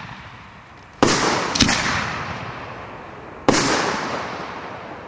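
Aerial firework shells going off: three sharp bangs, the first about a second in, the second half a second later and the third past three seconds, each trailing off slowly into a fading rumble.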